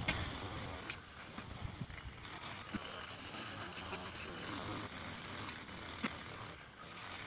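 Outdoor background noise with a few faint, short knocks and clicks spread through it, about one every couple of seconds.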